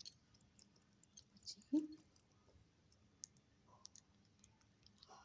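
Faint, scattered wet clicks and squishes as a hand coats a whole eggplant in thick batter, with one louder soft knock a little under two seconds in.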